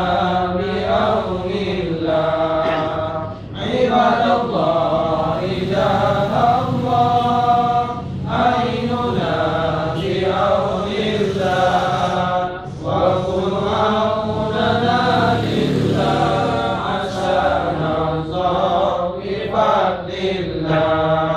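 A group of men chanting an Islamic devotional text aloud together, in long melodic phrases with short pauses for breath every few seconds.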